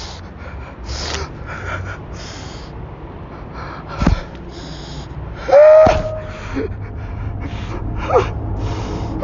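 A distressed man gasping and breathing in sharp, hissing breaths, with a short pitched cry a little past halfway and a brief one near the end. A single dull thump sounds about four seconds in.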